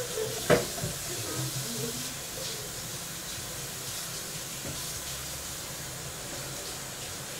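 Steady hiss of pots boiling on the stove, with one sharp knock about half a second in.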